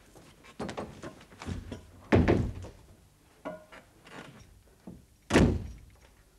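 A door shutting with a heavy thud twice, about two seconds in and again about five seconds in, with smaller knocks of things handled on a desk between.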